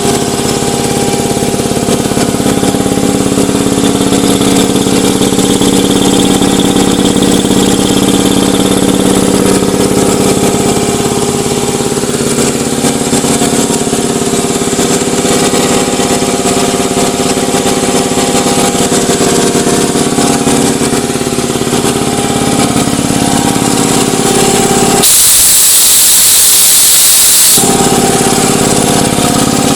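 Ingersoll Rand 80-gallon, 5 hp electric air compressor running steadily under load, pumping up its tank. About 25 seconds in, a loud hiss of air lasts roughly two and a half seconds before the steady running is heard again.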